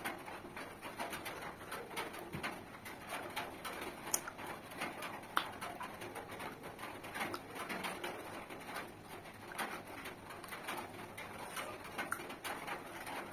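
Wet chewing, smacking and sucking as beef curry is eaten off the bone by hand, with many small mouth clicks. Doves cooing in the background.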